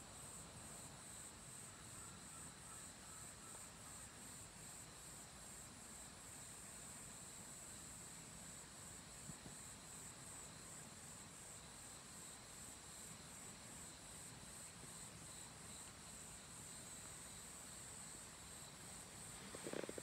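Insects chirping in a faint, steady, pulsing high trill in autumn woodland. A short knock sounds just before the end.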